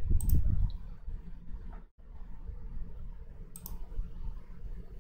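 Computer mouse clicking twice, about three seconds apart, over a steady low background rumble.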